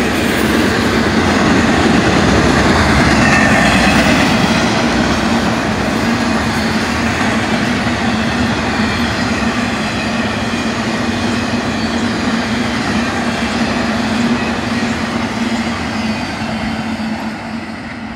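Freight train's intermodal cars rolling past at speed: a loud, steady rush of steel wheels on rail with a constant hum underneath. It fades over the last few seconds as the end of the train goes by.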